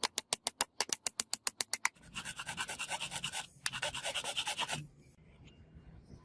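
A quick run of sharp, evenly spaced clicks, about eight a second, followed by nearly three seconds of fast scraping strokes with a short break in the middle.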